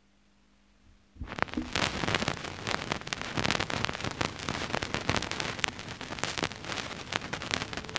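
Needle set down on a spinning 7-inch vinyl single about a second in, then crackle and scattered pops of surface noise from the run-in groove.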